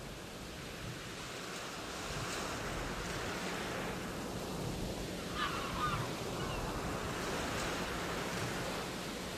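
Steady wind rushing over the microphone, with a faint low hum underneath and a brief chirping sound about five and a half seconds in.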